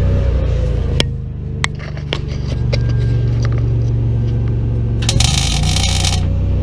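Arc welding on a truck axle bracket: a burst of welding-arc crackle lasting about a second, starting about five seconds in, over a steady low machine hum. A few sharp clicks come before it.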